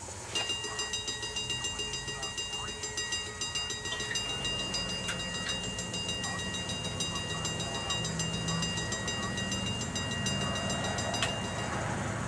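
Railroad grade-crossing bell ringing in quick, even strokes, the crossing warning for an approaching train; it starts suddenly about half a second in and stops about a second before the end. A low rumble of the approaching train grows underneath from about halfway through.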